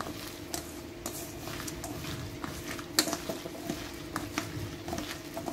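Gloved hand squishing and kneading a buttery chopped-vegetable stuffing in a stainless steel bowl: soft squelching with small scattered clicks against the metal, one sharper click about three seconds in, over a steady hum.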